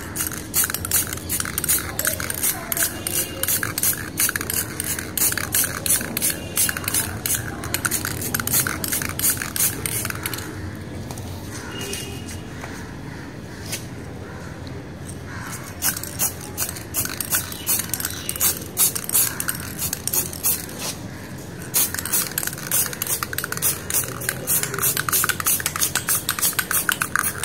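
Aerosol spray-paint can hissing in quick repeated bursts as the nozzle is pressed and released, laying a second coat of base paint. The spraying pauses for a few seconds about ten seconds in, then starts again.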